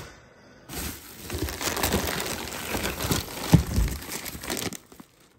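Bubble wrap and plastic packaging crinkling and rustling as hands dig through a cardboard box, starting about a second in, with one heavy thump about halfway through.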